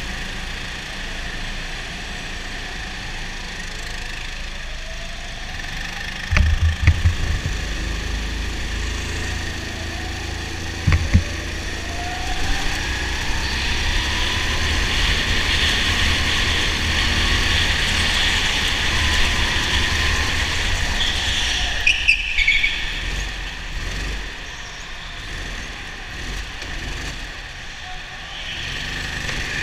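Rental go-kart engines running, heard from onboard a kart; its engine rises in pitch in repeated sweeps as it accelerates. Two short heavy thumps come in the first half, and a brief high squeal a little past two-thirds of the way.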